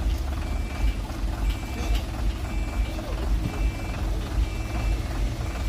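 A truck's reversing alarm beeping, a short high beep about once a second, over the low, steady rumble of a heavy truck engine.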